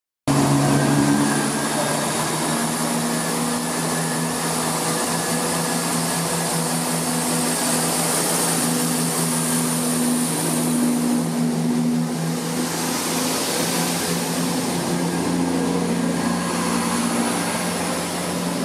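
CrossCountry Class 170 Turbostar diesel multiple unit moving past close by, its underfloor diesel engines running with a steady drone under a high hiss.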